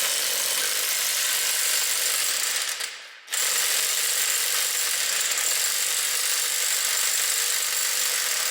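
A powered wrench running a nut down on the truck's suspension, in two long steady runs with a short break about three seconds in, until the nut is good and tight.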